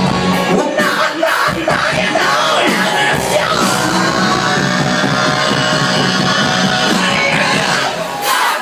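Live rock band playing, with a male singer yelling into the microphone.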